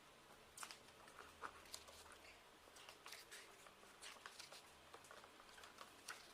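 Faint rustling and scattered small clicks of an album and its paper contents being handled.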